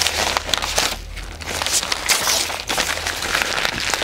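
Sheets of white paper crumpled and twisted in the hands: irregular crinkling and crackling, briefly quieter about a second in.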